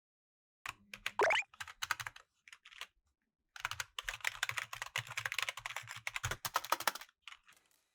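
Fast typing on a gaming keyboard: a short run of keystrokes, a pause, then a longer dense run of rapid keystrokes. A short rising sound, the loudest thing here, comes about a second in.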